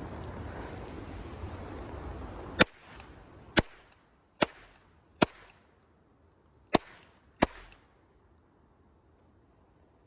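Toy cap-gun revolver firing six sharp cracks, each a second or so apart. Before the first shot a steady hiss runs, then cuts off suddenly.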